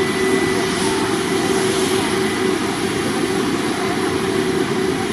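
Jet airliner engines running: a loud, steady rush of engine noise with constant tones held through it.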